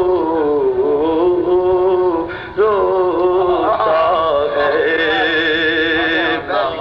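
A man's solo voice singing a naat, drawing out long melismatic notes that bend in pitch and waver with vibrato. There is a short break for breath about two and a half seconds in.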